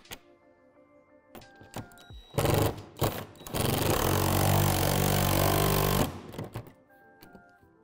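Cordless drill driving screws into plastic roof panels: a few short bursts, then one longer run of about two and a half seconds that stops suddenly. Soft background music plays underneath.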